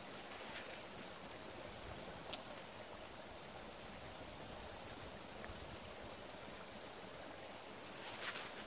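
A river running steadily, a faint even rush of water, with one sharp click about two seconds in and a few more clicks near the end.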